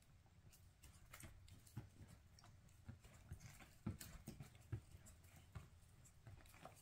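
Near silence: room tone with a few faint, scattered taps.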